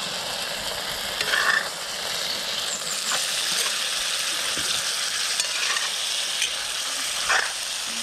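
Food sizzling as it fries in hot oil in a pan, a steady hiss, while a spatula stirs it, with louder scraping strokes against the pan about a second and a half in and again near the end.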